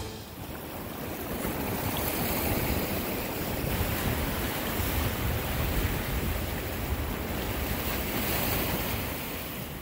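Sea surf washing and breaking over rocks along the shore, a steady rushing noise, with wind buffeting the microphone.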